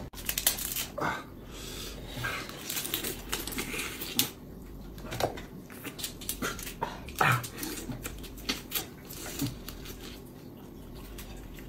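A dog whimpering, with a few short cries among small clicks and taps.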